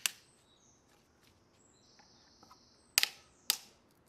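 Plastic tile-levelling wedge clicking as it is forced through its clip: a short run of clicks right at the start, then two sharp clicks about half a second apart about three seconds in as levelling pliers squeeze it tight.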